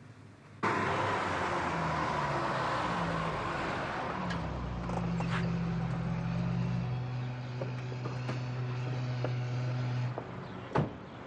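Car engine running while driving, with street traffic noise; the engine note shifts a few times, then holds steady. The engine stops about ten seconds in, and a car door slams shut once.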